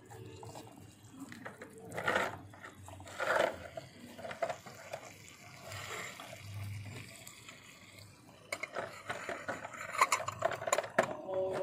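Metal utensils clinking and scraping in a cooking pot as food is stirred, with a few scrapes early on and a quick run of sharp clinks near the end.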